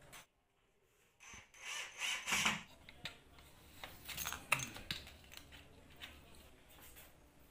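Irregular rustling with light clicks and knocks, as of small objects being handled and set down, after a second of near silence near the start.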